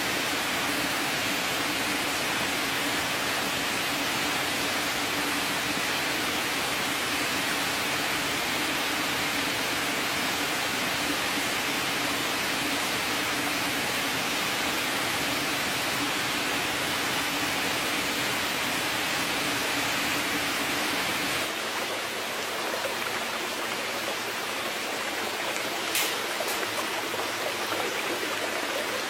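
Steady rushing noise with a low steady hum beneath it; the sound changes abruptly about three-quarters of the way through, the hum dropping out, and a single sharp click follows shortly after.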